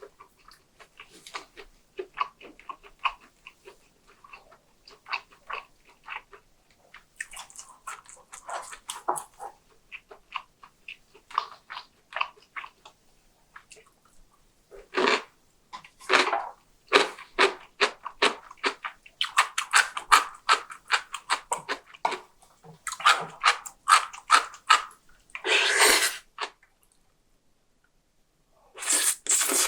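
Close-miked eating sounds: a person chewing in quick, repeated strokes, growing louder and denser in the second half, with a couple of longer, noisier stretches about halfway and near the end.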